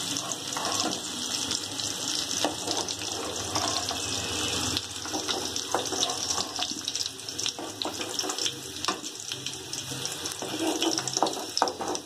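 Fried potatoes sizzling in hot mustard oil in a metal kadai, a steady hiss. Through it come repeated clicks and scrapes of a metal utensil against the pan as the pieces are lifted out.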